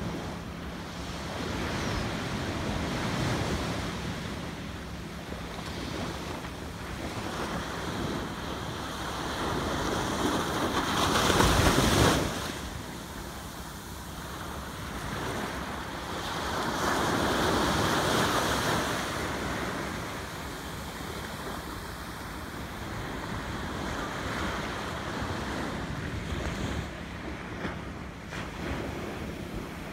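Surf washing onto a sandy beach in slow swells, with wind on the microphone. The loudest rush builds to about twelve seconds in and cuts off sharply; another swell follows a few seconds later.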